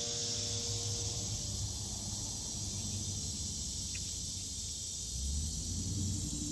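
Steady high-pitched chirring of insects, with a low rumble underneath and a faint click about four seconds in.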